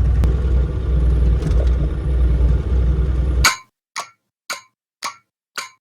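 Bobcat E35 mini excavator's diesel engine running steadily, heard from inside the cab, until the sound cuts out abruptly about three and a half seconds in. After that come five short, sharp clanks, about two a second, with silence between them.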